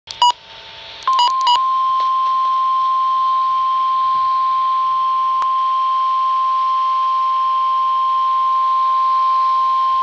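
Midland NOAA weather radio's speaker giving a few short beeps, then the single steady warning alarm tone held for about nine seconds: the alert that a warning broadcast, here a severe thunderstorm warning, is about to follow.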